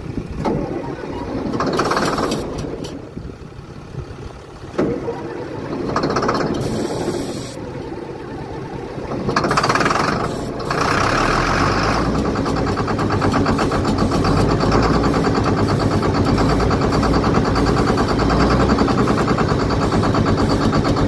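Old John Deere tractor's diesel engine being cranked over by its starter in three short tries, then catching about eleven seconds in and running steadily and loudly. The engine had sat unused for years and was being started on ether.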